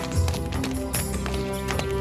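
Background music score with held notes and sharp percussive hits, a low thump shortly after the start.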